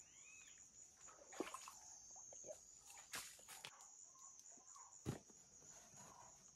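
Quiet riverbank with insects chirring steadily in a high, thin band, and a few faint knocks about a second and a half, three seconds and five seconds in.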